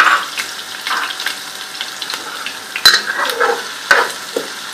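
Chopped onions frying in hot oil in a pot, sizzling steadily while a spoon stirs them, with a few sharp knocks of the spoon against the pot.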